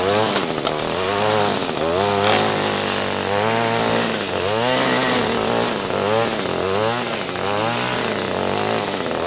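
String trimmer (weed eater) engine revving up and down over and over, its pitch rising and falling about once a second.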